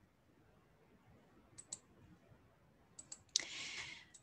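Faint scattered clicks, a few at a time, then a short hiss lasting under a second near the end.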